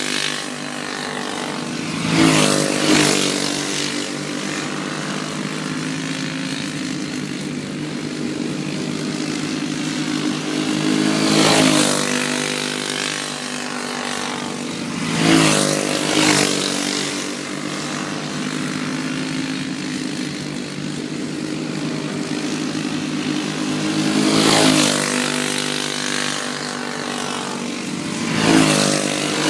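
Racing go-karts' small engines running flat out as the field laps the track, a steady engine drone throughout. Karts pass close by several times, each pass swelling louder and dropping in pitch as it goes by.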